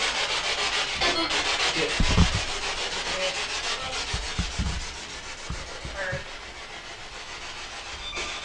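Spirit box radio scanning: a steady hiss of static, rapidly chopped as it sweeps, with a few brief snatches of pitched radio sound. Some low thumps come about two seconds in, and the static grows fainter over the second half.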